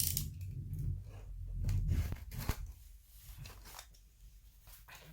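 Handling noise of a book parcel being unpacked: scattered light crinkles and taps over a low rumble of the box being moved, louder in the first two and a half seconds, then quieter rustling.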